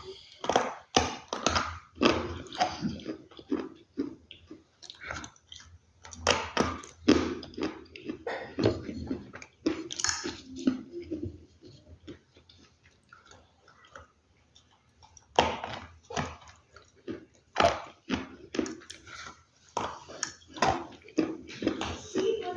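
Close-up crunching and chewing of a brittle, earthy material, in quick runs of sharp crunches, with a pause of about three seconds around the middle.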